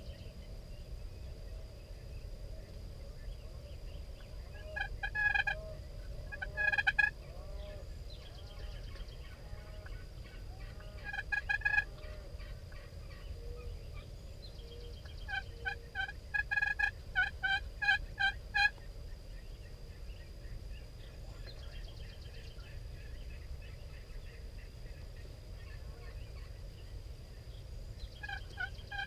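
Turkey calling: a few short bursts of calling, then a run of about nine evenly spaced notes in a row.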